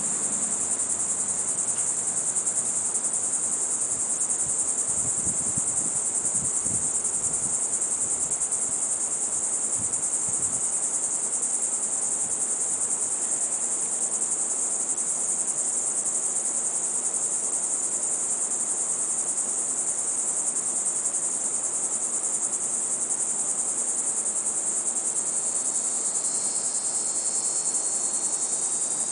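Steady, high-pitched insect chorus that goes on without a break.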